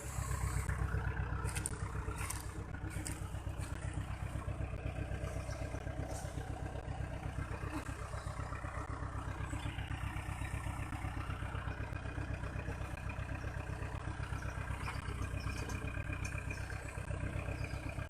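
Diesel engine of a Case 580 Super M backhoe loader running steadily at an even speed, with a fast, regular throb.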